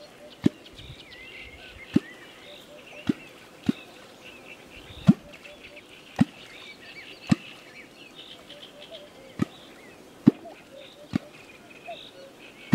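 A wooden catfish kwok is struck into the water surface over and over, about a dozen deep, hollow 'kwok' plunks at roughly one a second. This is the call used to draw catfish. Birds chirp faintly behind it.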